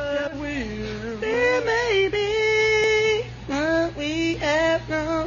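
A high voice singing a love song, with notes that bend and one long held note in the middle, over a low steady hum.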